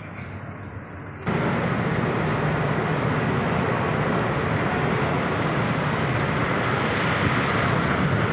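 Steady rushing noise of wind and churning water alongside a moving fast ferry, with the ship's drone underneath; it cuts in suddenly about a second in, after quieter cabin noise.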